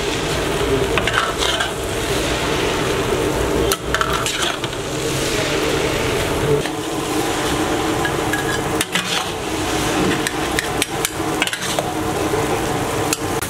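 Chicken noodles being tossed and stirred in a large wok with a metal spatula: steady frying sizzle, with sharp scrapes and clanks of the spatula against the pan, coming more often in the last few seconds.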